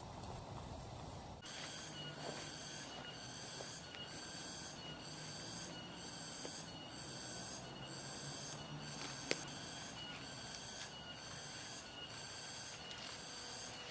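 Forest insect chirring in a steady pulse, about two pulses a second, starting about a second and a half in. One sharp click about nine seconds in.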